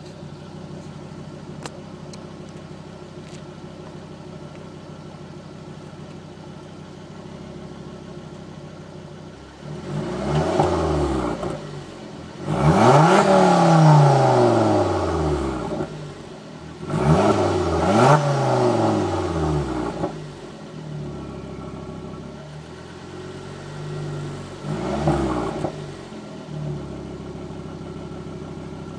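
A 2005 Volvo S40 T5's turbocharged five-cylinder engine running through a Flowmaster custom exhaust. It idles steadily for about ten seconds, then is revved four times, the longest and loudest in the middle, falling back to idle after each.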